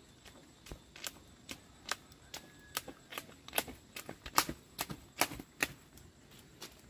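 A run of irregular sharp clicks and knocks, two or three a second, loudest and densest in the middle.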